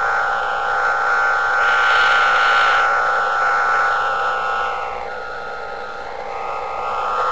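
Radio receiver hiss carrying Jupiter's radio emission, with faint steady whistle tones running through it. The noise swells to a peak about two seconds in, fades around five to six seconds, and rises again near the end; this slow rise and fall is the variation in Jupiter's signal.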